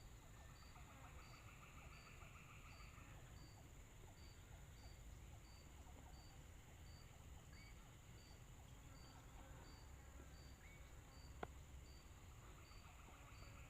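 Faint insect chorus: a steady high buzz with regular short chirps, a little under three a second, and a rapid pulsed trill for the first few seconds that returns near the end. A single sharp click about eleven seconds in.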